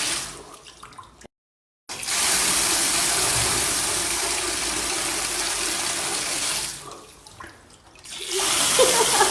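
Steady rushing noise of running water, broken by a second of dead silence a little over a second in and a dip around seven seconds in.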